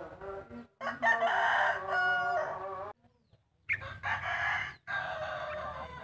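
Rooster crowing: a long crow about a second in, then another crow after a short pause.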